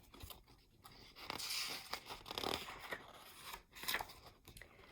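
Rustling handling noise with a few light clicks and taps, the sound of the reader handling the book or the buttons between sentences.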